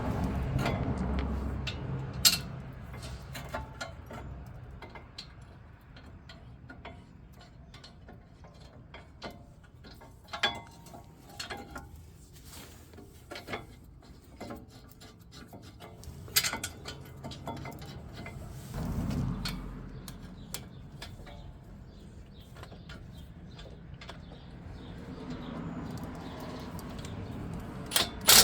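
Hand tools clicking and clinking on the brake caliper bracket, with a few sharper metal knocks and a quick run of ratchet clicks near the end.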